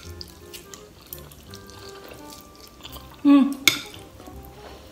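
Eating noises as instant noodles are slurped and eaten, with light cutlery clinks. There is a short voiced sound followed by a sharp click a little past three seconds in, over faint background music.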